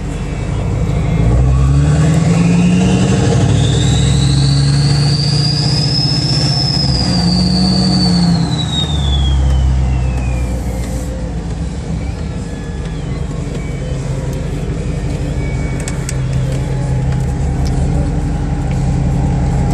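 Duramax LMM 6.6-litre V8 turbodiesel revved up and let back down, its Danville 72mm variable-vane turbo whistling. The whistle climbs steadily in pitch as the engine spools, holds high for a few seconds, then glides down as the revs drop. The engine then settles to a steadier run.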